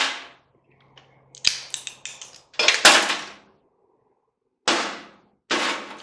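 Sharp metallic knocks and snaps from hand tools working a stubborn toroid coil loose from a microwave part: a quick run of clicks, one loud strike, then two more single knocks, each ringing briefly.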